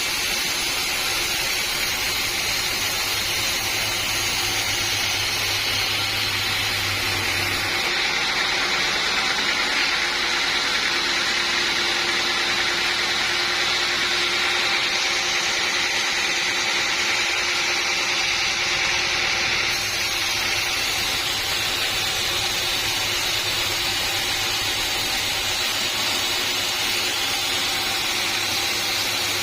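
Sawmill machinery running steadily: a continuous mechanical noise that changes character abruptly about eight seconds in and again about two-thirds of the way through.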